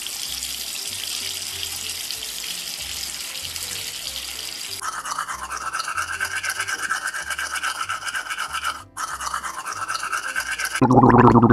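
Shower water running as a steady hiss, cut off after about five seconds by a toothbrush scrubbing back and forth in quick strokes, with a short pause partway through. A short, loud, low-pitched sound begins near the end.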